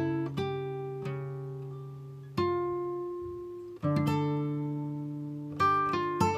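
Background music: slow plucked guitar chords, each ringing out and fading before the next is struck, four chords in all.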